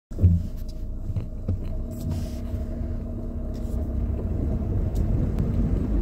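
Four-wheel-drive vehicle wading through a river ford, heard from inside the cabin: a steady low engine rumble with water noise, a few sharp knocks, and a gradual rise in loudness toward the end.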